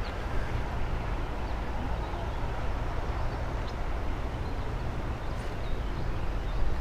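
Shimano Sedona spinning reel cranked steadily during a lure retrieve: a continuous low rumbling noise with a few faint ticks.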